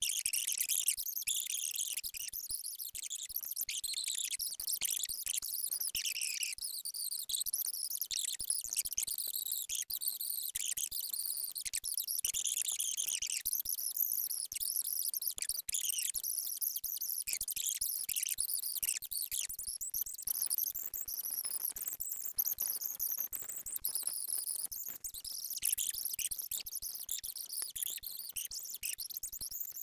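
Continuous high-pitched chirping and trilling from a background sound track, with no speech.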